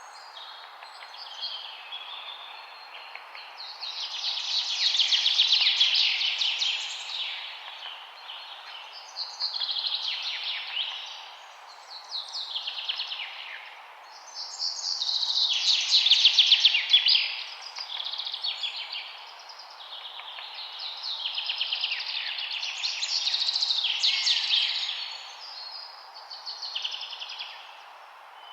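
Songbird singing a series of high, rapid trilled phrases, each a second or two long, repeated every few seconds over a steady background hiss.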